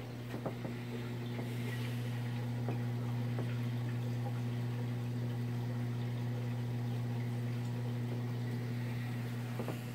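Nano reef aquarium running: its pump hums steadily while water trickles and drips.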